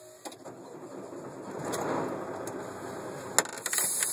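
Cab noise inside a semi-truck rolling slowly: a soft, even rushing that swells in the middle, with a few light clicks and knocks. A sharper click comes about three and a half seconds in, followed by a steady hiss.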